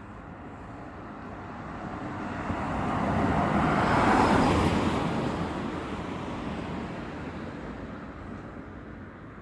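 A vehicle passing by: its noise swells to a peak about four seconds in, then slowly fades away.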